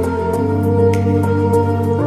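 Background music: held low notes and soft chords that shift a little way in, with a light tick about twice a second.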